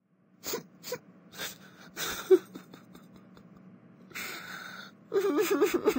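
A cartoon character's short breaths and gasps, a breathy sigh about four seconds in, then a wavering, whimpering voice near the end.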